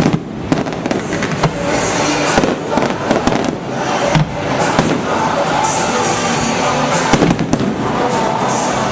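Stadium fireworks going off: a rapid, irregular series of bangs and crackles from aerial shells, with music playing underneath.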